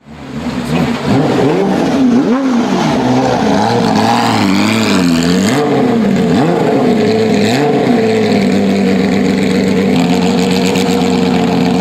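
Porsche 911 GT3 rally car's flat-six engine revving up and down several times in quick succession, then holding steady revs for the last few seconds.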